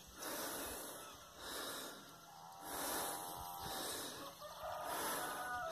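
A rooster crowing faintly, one call of about a second about two and a half seconds in and a shorter call near the end, over a soft rhythmic rustling about once a second.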